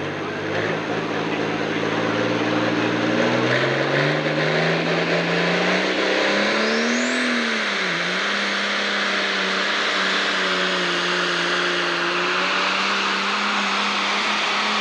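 Pro stock pulling tractor's diesel engine running hard under load on a pull, its pitch climbing steadily over the first several seconds, dipping briefly about eight seconds in, then holding high and steady.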